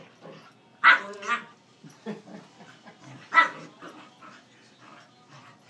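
A corgi and a pit bull puppy play-fighting, with sharp barks: two quick ones about a second in and another a little past three seconds, and smaller yips between them.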